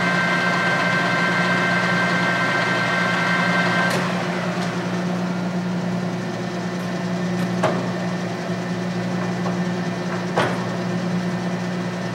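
Clausing Colchester 13 x 40 geared-head lathe running under power at 570 RPM, a steady hum with a whine from the headstock gearing. About four seconds in, the high whine stops and the sound drops a little. It is followed by two sharp clicks a few seconds apart.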